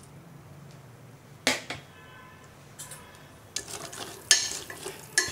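A ladle stirring chopped green beans and carrots in water in a steel pot, clinking and scraping against the pot, with the loudest clank about four seconds in. A single sharp knock comes about a second and a half in.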